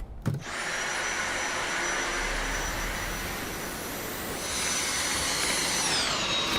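Cordless stick vacuum running: a steady rush of air with a high whine, starting about half a second in. The whine slides down in pitch near the end.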